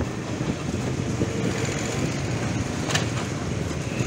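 Motorcycle engine running while the bike rides along, with the rumble of road and wind noise, heard from on the motorcycle. A short click about three seconds in.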